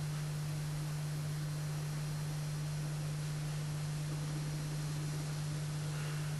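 A steady low hum over an even faint hiss, unchanging throughout; nothing else stands out.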